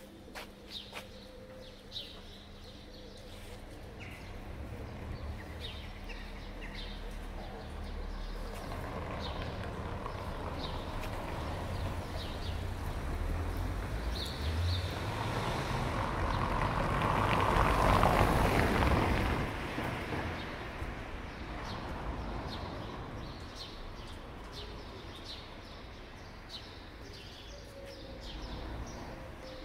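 A vehicle passing by: a broad rushing sound that swells slowly, peaks about two-thirds of the way through and fades away. Birds chirp throughout.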